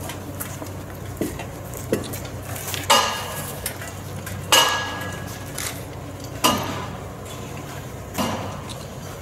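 Irregular metallic clanks and knocks, about six in all, the loudest two ringing briefly.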